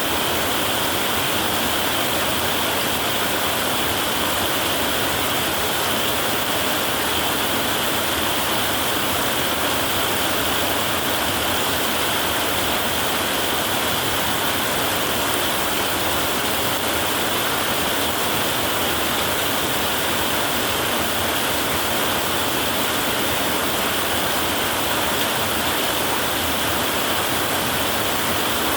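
Heavy rain falling on a tin roof: a steady, even hiss with no breaks.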